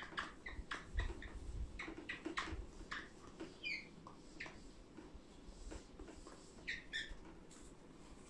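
Whiteboard eraser wiping across the board in a series of short rubbing strokes with a few small squeaks, busiest in the first half and thinning out after.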